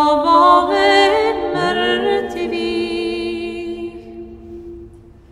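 Orthodox church choir singing a cappella, holding the closing chord of a chanted verse while a low voice slides up into a sustained drone about one and a half seconds in; the chord then fades away toward the end.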